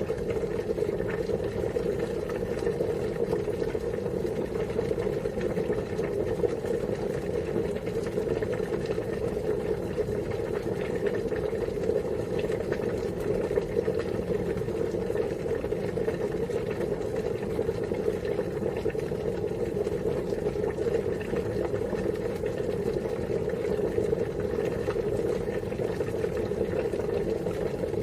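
Water at a rolling boil in a pot, a steady low bubbling and churning that never lets up.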